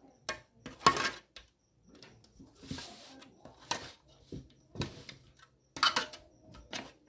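Metal spoon scraping and clinking against a large metal pan while thick white sauce is spread across its bottom: irregular knocks and scrapes, with one longer scrape about three seconds in.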